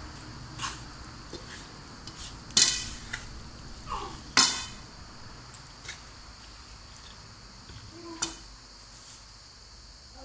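Wooden spoon stirring raw beef and onions in a non-stick frying pan, knocking against the pan now and then, with two loud ringing clanks between about two and a half and four and a half seconds in.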